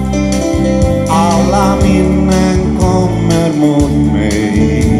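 Live rock band playing a song: electric guitar, bass guitar and drum kit, with a steady drum beat of about two hits a second.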